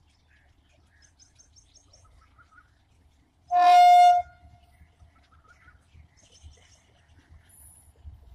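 Electric locomotive's horn sounding one short blast, a single steady note lasting under a second, about three and a half seconds in.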